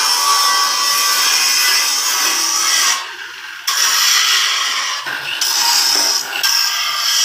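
An electric power tool cutting wood, running with a steady high-pitched whir. It stops for a moment about three seconds in and dips twice more before the end.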